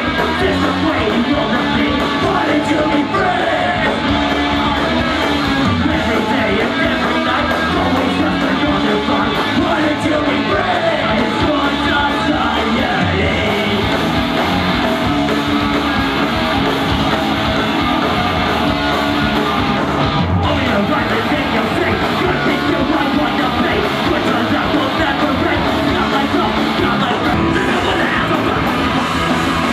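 Punk rock band playing live, with electric guitar and singing.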